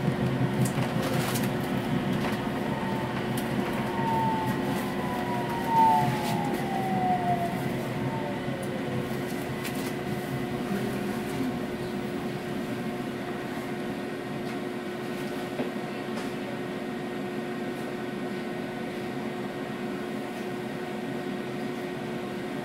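Tram heard from inside the car: the motor whine glides down in pitch over several seconds as the tram brakes to a stop, with a short knock about six seconds in. Afterwards only the steady hum of the standing tram.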